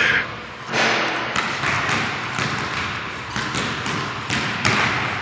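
Basketball being dribbled on a gym floor: a run of uneven bounces, about two a second, each with a short echo off the large hall.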